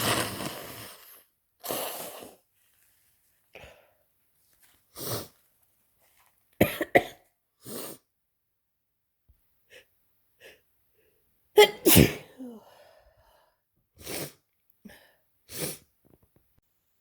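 A person with a head cold sneezing again and again, with shorter, softer breath sounds between the sneezes. The loudest come as a quick pair about seven seconds in and a double sneeze about twelve seconds in.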